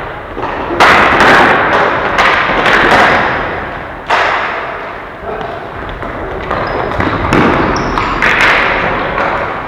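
Ball hockey play: several sharp knocks of the plastic ball and sticks against the boards, each ringing out with a long echo.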